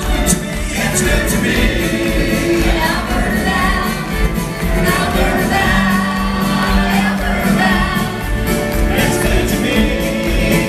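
Live country music: strummed acoustic guitars and drums with several voices singing together.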